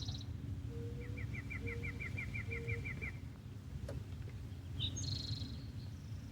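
Wild birds singing: a fast trill of about a dozen even notes, three short low notes alongside it, and a few high chirps about five seconds in, over a steady low hum.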